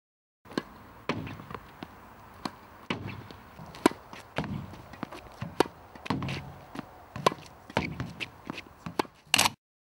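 Tennis ball rallied against a PROflex tennis backboard: sharp pops of ball on racket strings and on the board, roughly one a second or faster, with duller thuds and footsteps on the hard court between them. A short louder burst comes near the end, and then the sound cuts off.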